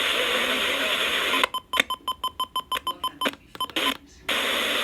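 Radio receiver hissing with steady FM static, then from about a second and a half in the audio chops rapidly on and off with short, evenly spaced beeps for about three seconds before the steady hiss comes back.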